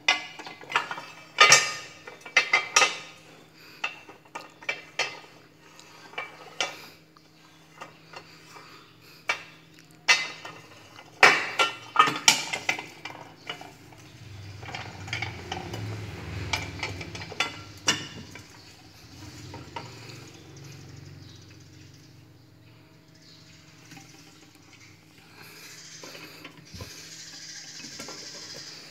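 Metal clicks, clanks and rattles from an antique charcoal iron being handled, as its loose handle is swung back and forth and its hinged lid is worked. The sharp knocks come in a busy run during the first half, loudest about halfway through, followed by a softer scraping stretch and lighter handling near the end.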